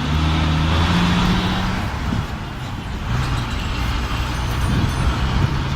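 Road traffic with a heavy vehicle's engine running close by. Its low hum is strongest in the first two seconds, then settles back into the general traffic noise.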